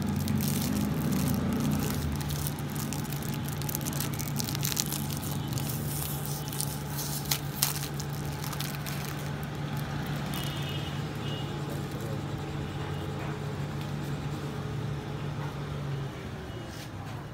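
Plastic wrapping crinkling and rustling as a new copper bush is unwrapped by hand, with sharp crackles through the first half. A steady low hum runs underneath and stops near the end.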